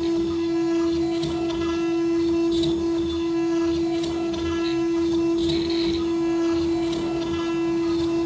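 CNC router spindle running at a steady pitch with a high whine while it carves wood, a faint scratchy hiss coming and going over it.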